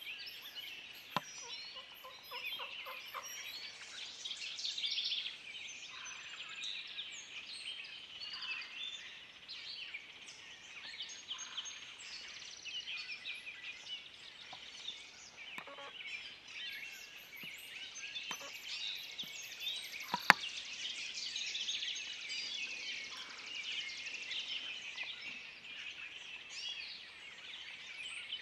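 Wild turkey tom gobbling over a dense chorus of songbirds. A single sharp click sounds about two-thirds of the way through.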